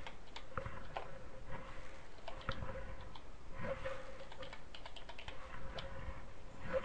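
Typing on a computer keyboard: irregular key clicks as numbers are keyed in.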